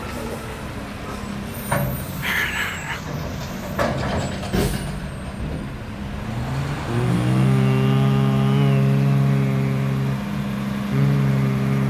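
Heavy diesel garbage truck with short air-brake hisses and a few sharp clanks in the first half. Then the engine revs up and runs strong and steady, dropping briefly near the end before picking up again.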